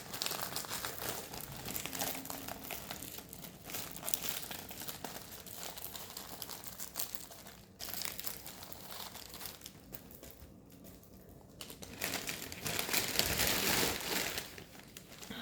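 Plastic packaging of a diamond painting kit crinkling as it is handled and opened, louder for a couple of seconds near the end.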